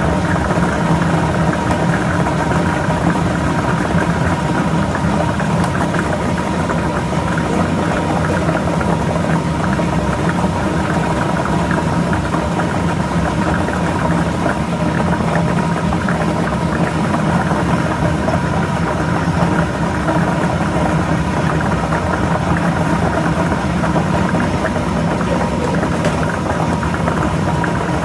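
Lottery ball drawing machine running: a steady motor or blower hum with balls rattling and tumbling inside.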